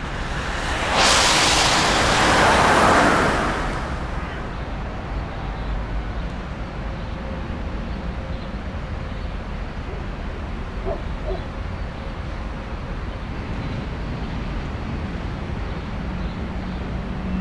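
A car passing on a wet road, its tyres hissing loudly for about two and a half seconds near the start. After that comes a steady low rumble of background traffic.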